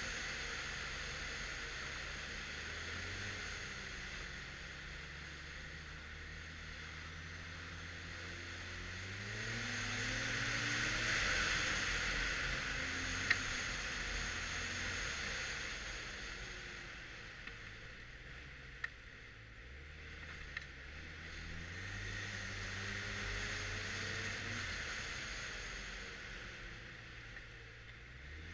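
2013 Arctic Cat XF 1100 Turbo snowmobile under way, its turbocharged three-cylinder four-stroke engine rising and falling in pitch as the throttle opens and closes, loudest about a third of the way through and again near the end, over a steady hiss. A few sharp clicks come in the middle.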